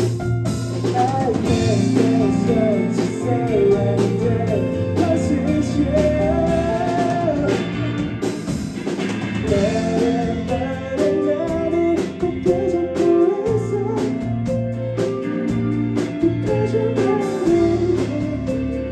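Rock band playing live: electric guitars, bass guitar and drum kit, with a melody line moving over a steady bass line.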